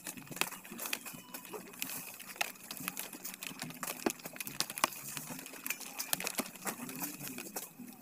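Dry sugarcane leaves and stalks crackling and snapping irregularly as they are handled, with a few sharper cracks among the rustling.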